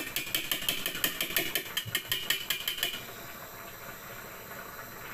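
Wire whisk beating liquid egg and cheese in a glass bowl: quick, even clicking and clinking against the glass, about six strokes a second, which stops about three seconds in.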